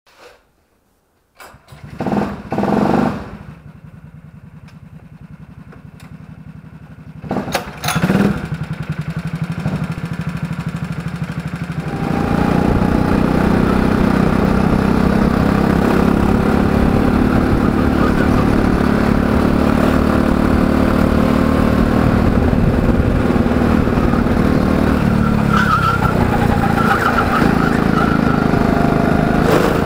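Go-kart engine heard from onboard. After a moment of quiet it revs briefly twice about two and three seconds in, settles to a lower, steadier sound, revs again around eight seconds, and from about twelve seconds on runs steadily at high revs, under load on the track.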